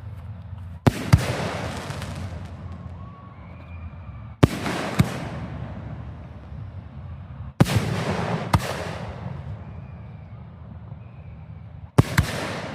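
Fireworks display: shells bursting with sharp bangs, mostly in pairs, about every three to four seconds. Each pair is followed by about a second of fading noise.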